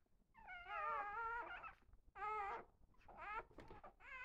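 Newborn puppies crying with high-pitched, wavering cries: one long cry about half a second in, then three shorter ones.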